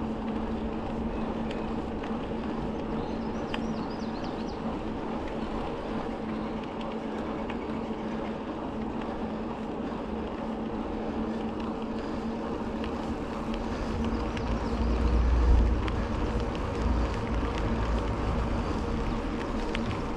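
A bicycle rolling along a trail: steady tyre noise with wind on the microphone, and a low wind rumble that swells about fourteen seconds in.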